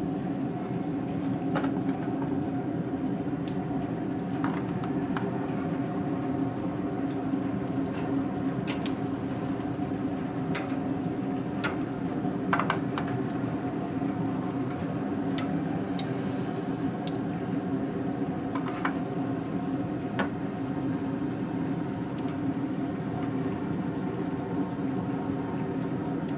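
Steady mechanical hum with scattered sharp, light metallic clicks and taps as pork steaks are laid onto a smoker's grill grate.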